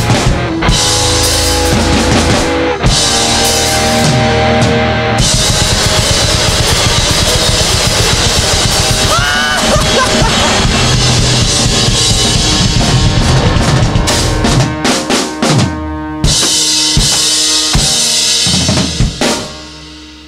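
Rock band's instrumental outro dominated by a full drum kit over the band, breaking into separate drum hits about fifteen seconds in, then playing on until it stops suddenly near the end, leaving one note ringing out.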